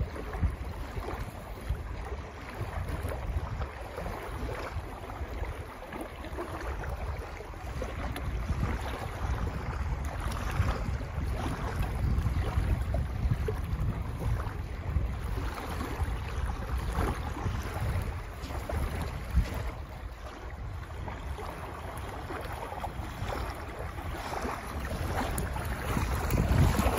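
Wind buffeting the microphone, a steady low rumble, over small choppy lake waves lapping and splashing close by.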